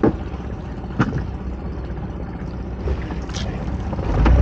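Small fishing boat's engine running at a low, steady idle, with a few short knocks of gear being handled on board. About four seconds in, the engine is throttled up and runs much louder.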